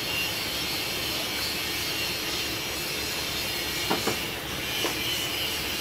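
Steady background rumble with a high hiss, and a couple of sharp clicks about four seconds in and one more a second later as a multimeter and its test probes are handled.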